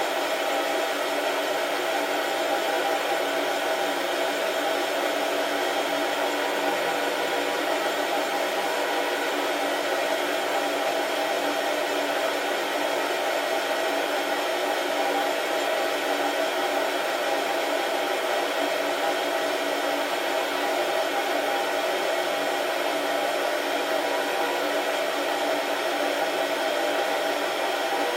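Beanbon home coffee roaster running through a batch, giving a steady, unchanging whir of blowing air and machinery with no cracks to be heard.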